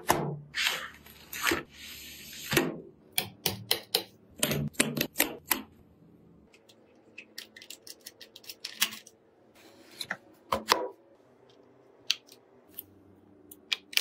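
Irregular clusters of sharp clicks and taps, with a stretch of rustling near the start, from PC parts and their packaging being handled: RAM boxes and parts being fitted onto a motherboard.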